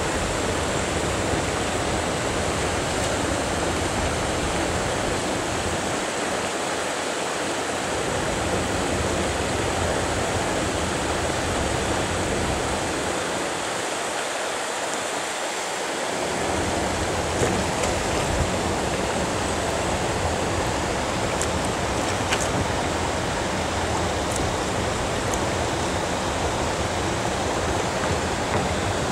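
Shallow river water flowing over a pebbly riffle: a steady rushing.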